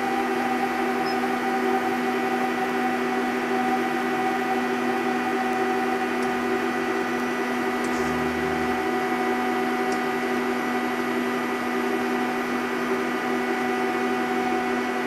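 Hitachi Seiki HiTec-Turn 20S III CNC turning centre running under power while returning its axes to zero: a steady machine hum made of several held tones at different pitches.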